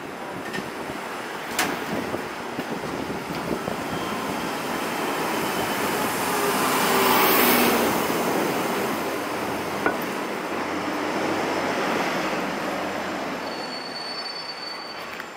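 Street traffic noise that swells as a large vehicle passes close, peaks about seven seconds in and slowly fades, with a faint high squeal over it.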